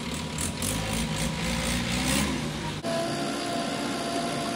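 Diesel engine of heavy earthmoving machinery running with a rapid rattling hiss over it. About two-thirds of the way through it cuts abruptly to a lighter, steadier engine hum.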